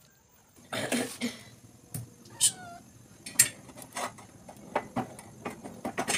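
Steel pincer tongs clicking against the rim of an iron tawa as it is gripped and tilted, a run of sharp metallic clicks in the second half. About a second in comes a short rough vocal sound like a cough, and a brief falling squeal follows shortly after.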